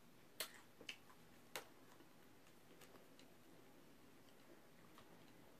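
Near silence broken by a few sharp crackles in the first two seconds, and fainter clicks later on. They come from crispy fried chicken being chewed and pulled apart.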